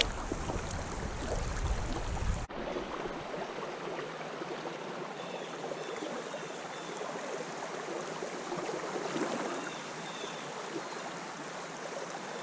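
Creek water running steadily. About two and a half seconds in, the deep part of the sound drops out suddenly, leaving a thinner, hissier rush.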